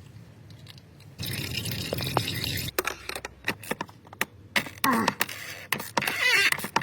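Used engine oil pouring and gurgling into a container, with a steady rush about a second in, then clicks and a gurgle near the end.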